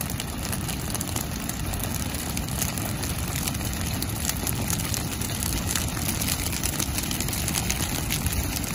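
Dry grass field fire burning along a flame front: steady crackling over a constant low rumble.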